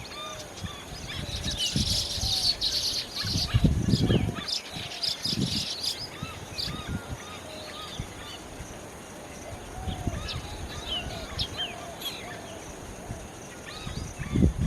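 A group of weaver birds chirping and chattering with many short, quick notes, densest in a burst about two seconds in. Low rumbling thumps come about four seconds in and again near the end.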